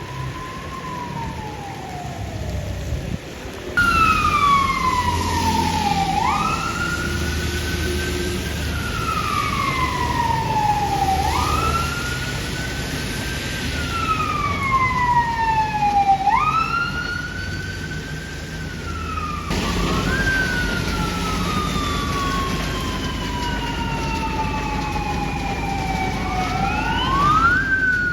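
Fire truck sirens wailing, each cycle a quick rise in pitch followed by a slow fall, repeating about every five seconds. Partway through, a slower, longer sweep overlaps it, as two trucks sound their sirens at once.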